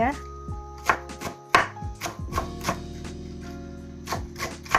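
Knife chopping squash leaves and stems on a wooden cutting board: a string of irregular strikes, the loudest about a second and a half in, over steady background music.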